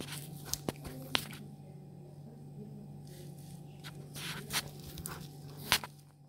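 A knife working at a coconut's shell and white meat: a few sharp clicks and cracks, the loudest near the end, with scraping in between. A steady low hum runs underneath.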